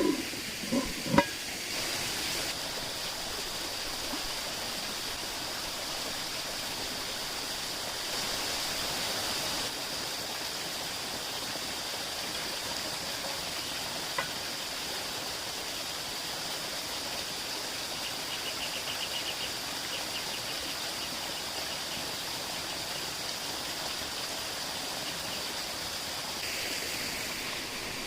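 Steady rushing of a stream, with a few short clinks in the first second or so.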